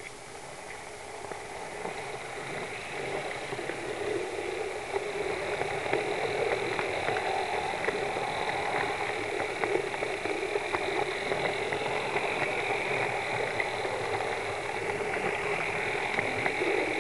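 HO scale 4-4-0 model steam locomotive running along the track: a steady whir of motor and gearing with scattered clicks of wheels on the rails, building up over the first few seconds as the train gets under way.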